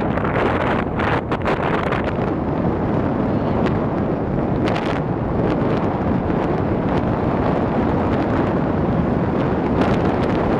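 Strong wind buffeting the microphone outdoors: a loud, steady rushing noise with a few brief gusts in the first couple of seconds and again about halfway through.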